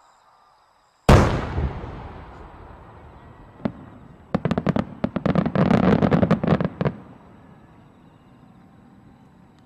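Aerial firework shell bursting with one loud sudden boom that fades away slowly. A single sharp crack follows, then a dense crackle of rapid sharp pops for a few seconds.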